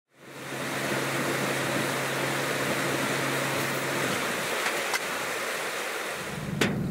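A steady engine hum over a wash of noise, fading in at the start. The hum cuts out about four seconds in, and a different, higher hum starts near the end, with a sharp knock just before the end.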